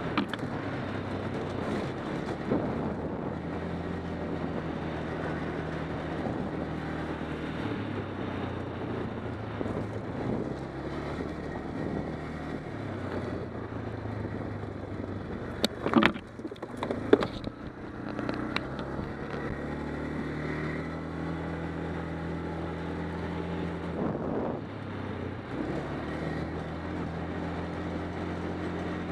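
ATV engine running steadily as the quad rides a rough dirt trail, its pitch dropping and picking up again a couple of times as the throttle eases off and comes back on. A few sharp knocks, the loudest sounds, come together just past the halfway mark.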